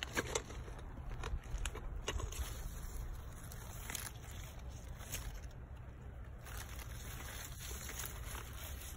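Rustling and light clicks of tomato leaves and stems brushing against a handheld phone, a few times in the first half, over a steady low rumble on the microphone.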